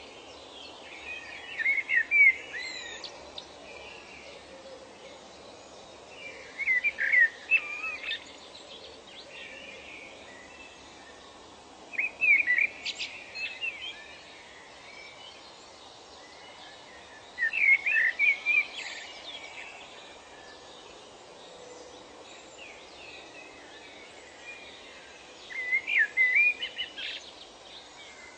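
A songbird sings a short, rapid phrase of chirping notes five times, about every five or six seconds, over a steady faint background hiss.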